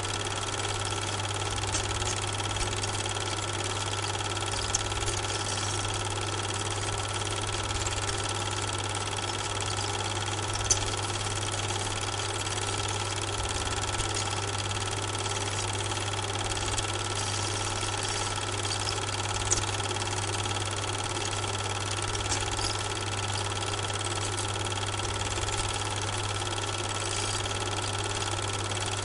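Steady machine-like hum with constant thin high whines over a light hiss, broken by a few faint clicks. The film is silent, so this is not the sound of the trains in the picture.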